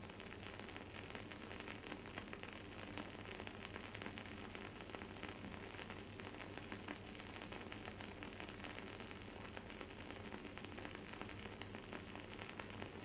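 Wooden candle wick burning with a faint, dense crackling and sizzling made of many tiny quick pops.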